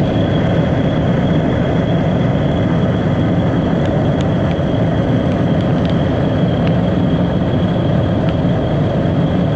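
Steady road and wind noise of a car driving at highway speed, with a thin high whine running over it.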